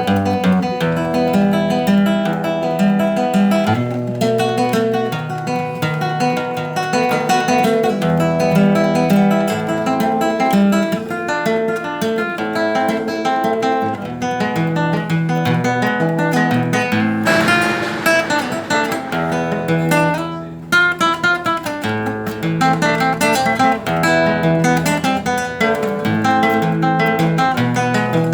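Acoustic guitar playing an instrumental milonga: plucked bass notes under a picked melody, with a run of strummed chords about two-thirds of the way through.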